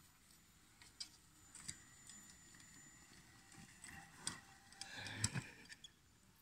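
Near silence with a few faint, scattered clicks and ticks, and a soft rustle about five seconds in.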